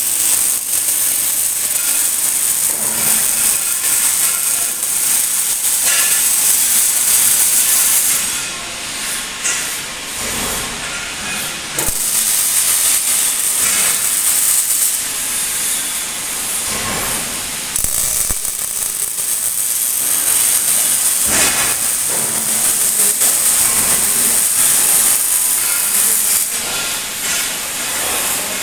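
Robotic arc welding: the welding arc hissing and crackling steadily. It eases off for a few seconds about a third of the way through, then picks up again.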